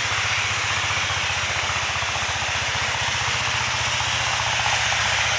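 A small engine running steadily with an even, rapid beat, over a constant hiss.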